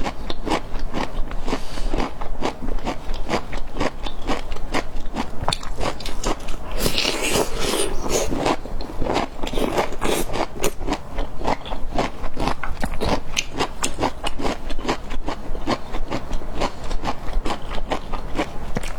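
Close-miked biting and chewing of bamboo shoots: a dense, continuous run of crisp crunches, with a brief hiss about seven seconds in.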